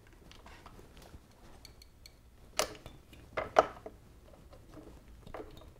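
Light metallic clicks and scrapes of a steel snap ring being worked by hand around the groove of a Muncie 4-speed transmission's input shaft bearing, with a couple of sharper clicks in the middle.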